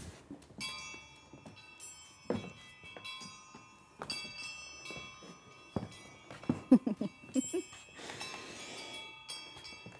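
Live stage percussion: metallic, bell-like tones struck and left ringing, with a few dull thuds and a short wash of cymbal-like noise near the end.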